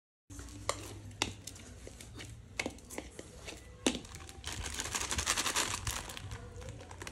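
Dough being kneaded by hand in a metal bowl, with a few sharp knocks. From about four and a half seconds in, a plastic flour packet crinkling as more wheat flour is poured from it.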